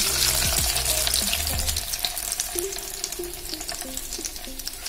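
Breadcrumb-coated bread rolls deep-frying in hot oil in a steel pan, a dense crackling sizzle that grows gradually fainter. The rolls are fried golden brown and nearly done.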